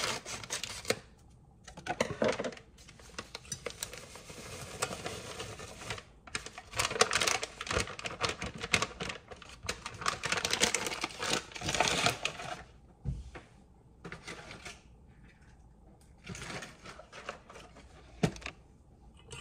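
Whisk clicking rapidly against a mixing bowl as the wet ingredients for a cake batter (eggs, milk and oil) are beaten together. It comes in bursts, the longest lasting about six seconds and stopping around twelve seconds in, followed by a few light knocks.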